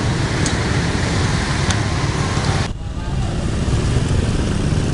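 Busy street traffic, mostly small motorbike engines running close by, as a steady dense rumble. It drops sharply for a moment just under three seconds in, then resumes.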